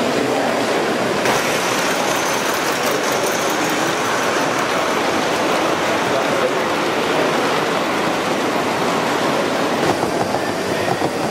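Gauge 1 model train running on the layout: a steady rushing clatter of its wheels on the track, mixed with exhibition-hall hubbub.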